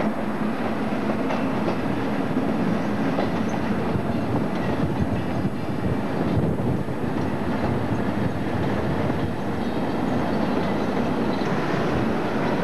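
Class 58 diesel-electric locomotive moving past, its diesel engine running steadily under the noise of wheels on the track.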